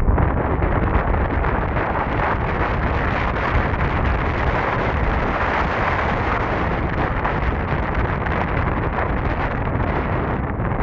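Steady wind buffeting the camera microphone while riding a Solar R1 electric scooter at speed: a loud rushing noise with a heavy low rumble.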